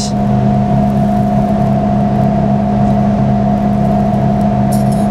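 Steady mechanical hum of the MVD 100 deposition system and surrounding cleanroom equipment, a few steady tones over a low rushing noise, with a light click near the end as the tweezers touch the chamber.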